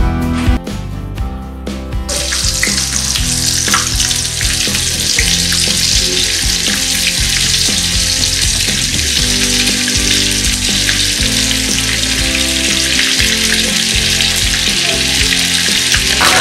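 Marinated kabab pieces deep-frying in hot oil in a kadai: a steady, dense sizzle that starts about two seconds in and keeps on as more pieces go into the oil.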